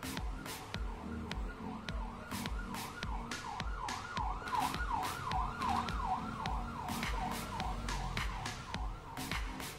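Background music with a steady beat: low thumps and sharp clicks under a repeating, wavering siren-like melody that is strongest in the middle.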